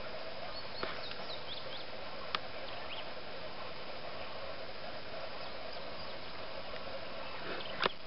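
Outdoor natural ambience: a steady background hiss with faint, high bird chirps scattered through it, and three sharp clicks, the loudest near the end.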